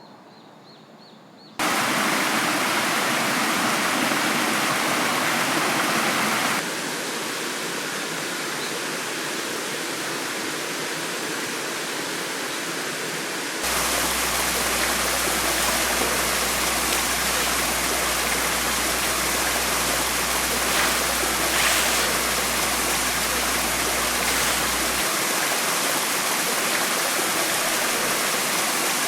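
A loud, steady hiss of noise with no tone in it. It starts abruptly about a second and a half in and jumps in level twice, as at cuts, and a low steady hum runs under it through the middle.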